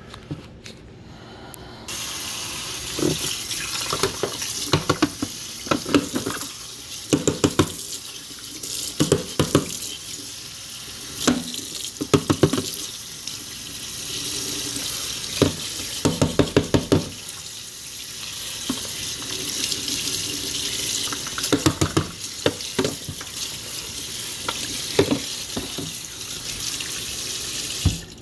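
Water running from a tap, starting about two seconds in and cutting off just before the end, with repeated knocks and clatter as the dishwasher's drain filter is rinsed and scrubbed under it.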